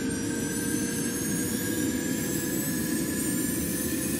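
Title-sequence sound effect: a steady jet-like rushing noise with faint tones slowly rising in pitch.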